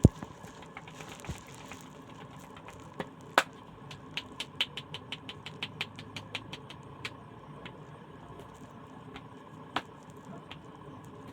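Head and neck massage by hand: a series of sharp taps or slaps, a single loud one, then a quick even run of about five a second for some three seconds, and another loud single one near the end. A faint steady hum runs underneath.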